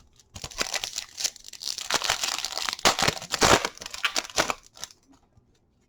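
Foil trading-card pack wrapper crinkling and tearing as it is opened and handled, a dense crackle lasting about four seconds that dies away near the end.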